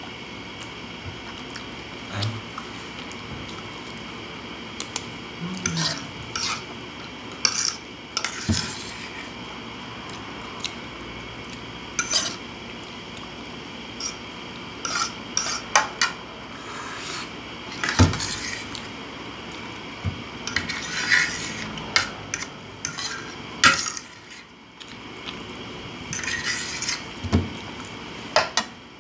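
Metal fork scraping and clinking against a ceramic plate as the last of the spaghetti and sauce is gathered up, in scattered short scrapes and clicks.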